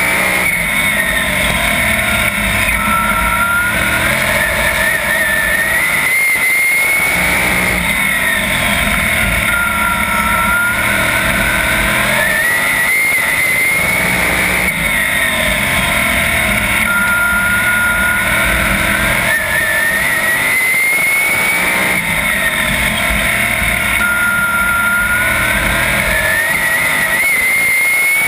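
A 410 sprint car's V8 racing engine under race power, heard on board. Its pitch climbs steadily along each straightaway and drops off into each turn, a rise-and-fall that repeats about every seven seconds.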